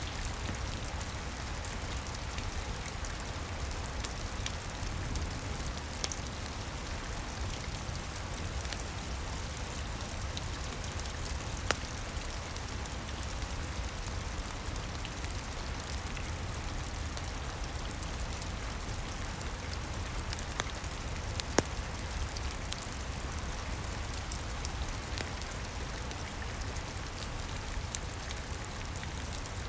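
Steady rain falling, with now and then a sharp crackle or pop from a wood fire. The two loudest pops come about twelve seconds in and about twenty-two seconds in.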